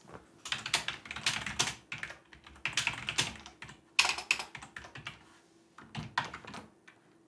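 Typing on a computer keyboard: fast runs of key clicks in four or so bursts, with short pauses between them.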